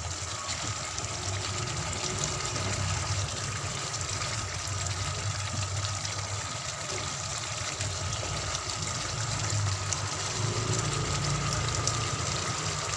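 Thick red chilli spice sauce simmering around fish in a frying pan: a steady bubbling hiss with small pops, over a steady low hum.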